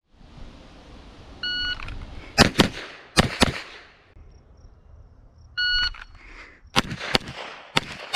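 Shot-timer start beep followed by four pistol shots in two quick pairs with a short pause between: a double tap on each of two targets, with a transition between them. The whole string repeats about four seconds later: a second beep, then two more pairs of shots.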